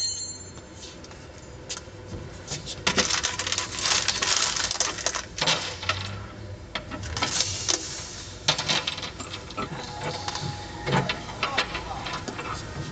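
Steel bolts, nuts and washers clinking and rattling as they are picked from a tray and pushed through the bolt holes along the flanges of moulded panels. The clicks come in irregular clusters.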